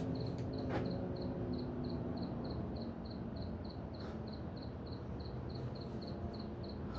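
A cricket chirping steadily, about three short high chirps a second, over a low rumble of vehicle engine noise that fades in the first few seconds.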